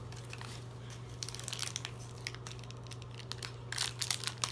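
Plastic toy packaging crinkling and crackling as it is handled and torn open, the crackles growing denser and louder near the end. A steady low electrical hum runs underneath.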